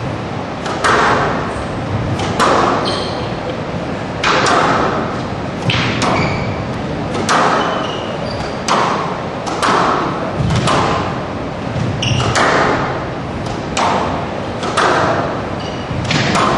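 Squash rally: the ball is struck by rackets and hits the walls, a sharp smack every second or so with a short echo in a hall.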